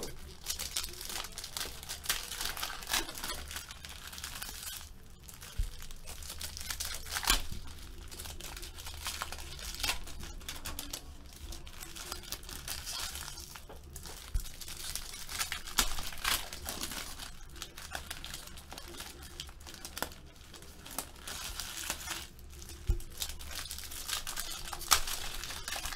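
Trading-card pack wrappers crinkling and tearing open as cards are handled, in many short irregular crackles, over a faint steady low hum.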